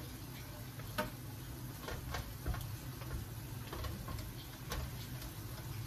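Wooden spoon knocking and scraping against a frying pan as pieces of tilapia are turned, a string of light, irregular clicks over a low steady hum.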